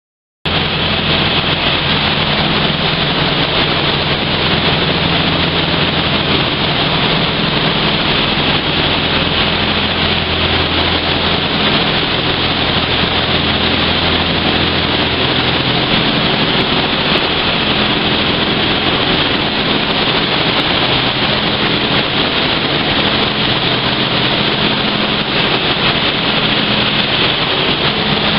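High-pressure water jets of a HAUTEK (ISTOBAL) truck wash spraying a silo tanker, a loud steady hiss of water spray that cuts in abruptly about half a second in, with a steady low machinery hum underneath.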